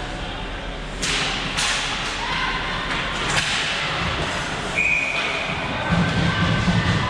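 Ice hockey game in an arena: several sharp knocks of pucks, sticks or bodies hitting the boards over a steady hum of rink noise, then spectators' voices rising near the end.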